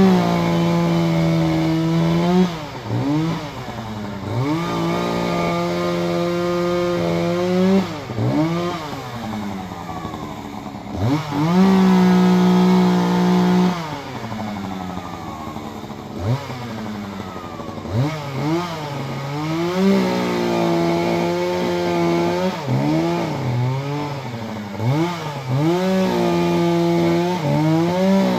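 Chainsaw running at high speed in held stretches of a few seconds, each time dropping in pitch and speeding up again as the throttle is let off and squeezed again.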